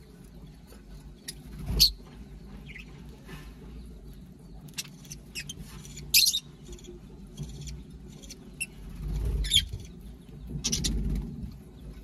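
Mixed flock of lovebirds and budgerigars at a feeding bowl giving short, shrill chirps and squeaks every few seconds, with the loudest a little under two seconds in. A low rumble comes in near the end.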